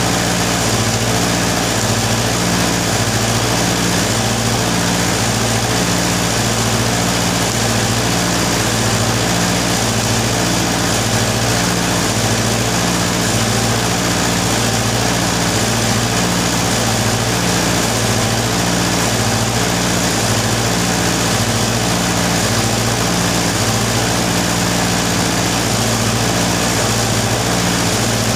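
Arc welding on a tractor roller: a steady hiss from the arc over a constant low machine hum, with a higher drone that pulses on and off about once a second.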